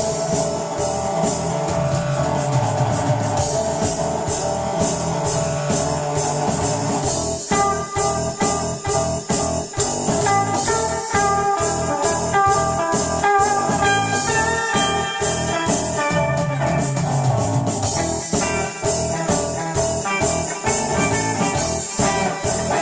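Blues-rock music with guitar over a drum kit keeping a steady beat; a line of higher guitar notes comes in about seven seconds in.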